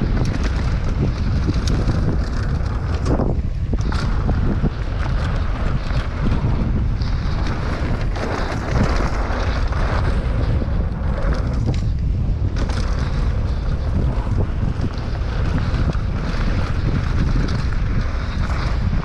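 Wind buffeting the microphone of a camera on a mountain bike riding fast downhill, over a steady low rumble of the Specialized Enduro's tyres on hardpacked dirt trail. Scattered short clicks and rattles from the bike run through it.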